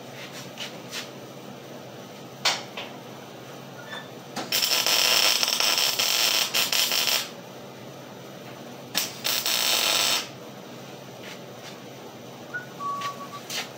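A MIG welding arc crackling as steel is welded, in two runs: one of about three seconds near the middle, then a shorter one of about a second. A few light knocks of metal come before and after.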